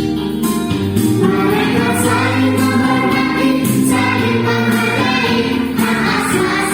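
Music with a choir of voices singing over steady accompaniment.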